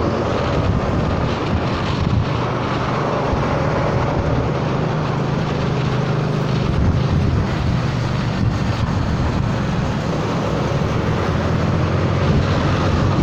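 Honda Forza 300 scooter's single-cylinder engine running steadily under way, with wind rushing over the camera microphone.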